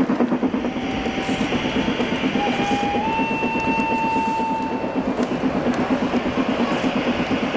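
Gauge 1 model steam train running past with a fast, even rhythmic clatter. A steady high tone lasts about four seconds and steps up slightly in pitch partway through.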